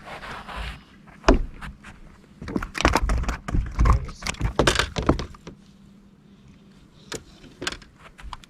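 A run of sharp knocks, thumps and rattles aboard a fishing boat, as things are handled and set down on the deck: one knock about a second in, a dense cluster in the middle, then two lighter clicks near the end.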